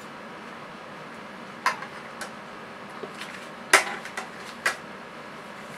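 Knife and fork clinking and scraping against a plate: about six sharp clinks, the loudest a little past the middle.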